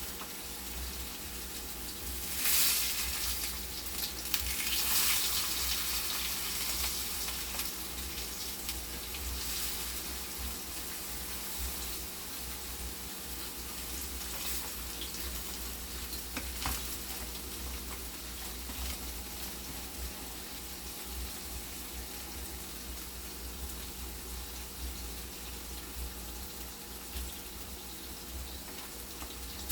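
Food frying in hot oil in a pan, a steady sizzle with louder surges about two and a half and five seconds in.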